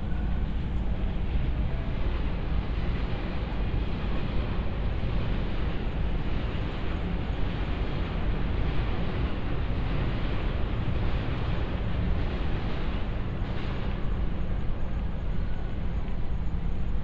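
Steady outdoor city ambience: an unbroken low rumble and hiss with no distinct events.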